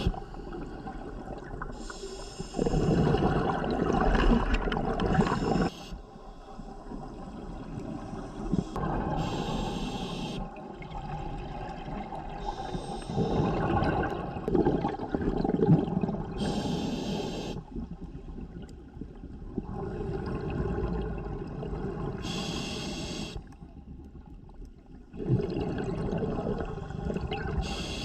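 Scuba diver breathing through a regulator underwater: a short hiss on each inhalation, then a longer gurgling rumble of exhaled bubbles, repeating about every five or six seconds.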